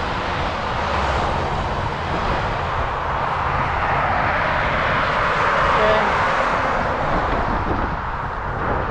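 Road traffic going by, a steady rush of tyre and engine noise that swells around the middle.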